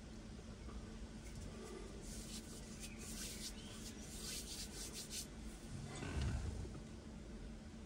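Faint rubbing and scratchy rustling, a quick run of strokes between about two and five seconds in, then a low thump about six seconds in, over a faint steady hum.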